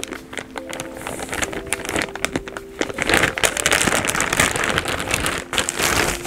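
Packaging crinkling and rustling as it is handled and unwrapped, a continuous run of small crackles. Light background music with steady notes underneath.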